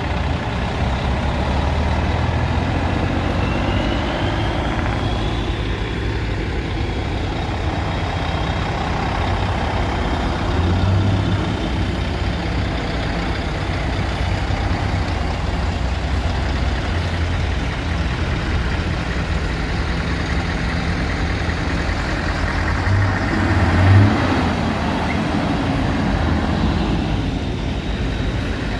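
Heavy diesel lorry engines running steadily as the trucks move off, the engine note swelling louder about ten seconds in and again about four-fifths of the way through. A high whistle rises briefly a few seconds in.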